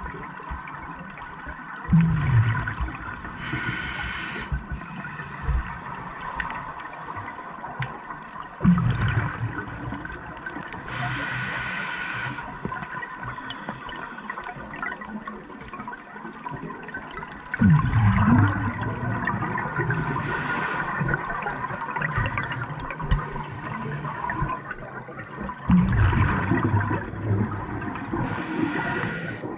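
Scuba breathing through a regulator underwater, about four breaths: each breath has a short high hiss from the regulator and a loud low burst of exhaled bubbles that gurgles and then fades.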